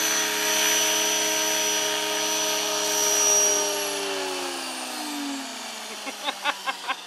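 Radio-controlled model helicopter's motor and rotor running with a steady high whine as it settles onto the pad, then spooling down after touchdown about four seconds in, falling in pitch as the rotor slows. A few light clicks near the end.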